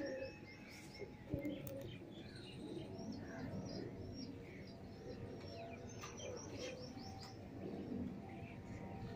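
Domestic flying pigeons cooing, with other birds chirping high over them throughout. A single sharp knock about a second and a half in.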